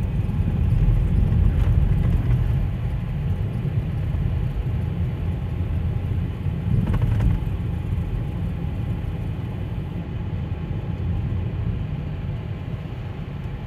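Steady low vehicle rumble at slow driving speed, heard from inside a car's cabin.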